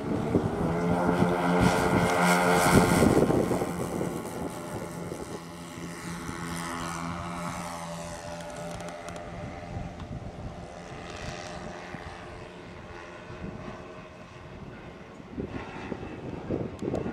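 Engines of a radio-controlled 1/10-scale B-17 model bomber droning as it flies past. The sound is loudest about three seconds in, then drops in pitch and fades as it moves away, and grows louder again near the end.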